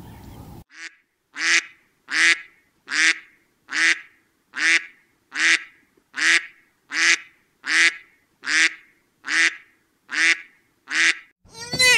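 An animal's short, harsh call repeated about fourteen times at an even pace, a little under a second apart. A different, wavering call starts near the end.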